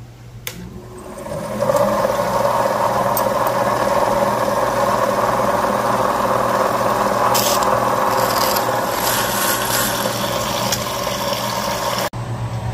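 Sioux Tools model 2075 valve face grinder running as a valve stem tip is ground down to set installed stem height. It starts with a click about half a second in, comes up to speed over a second or so, runs steadily and loudly, then cuts off sharply near the end.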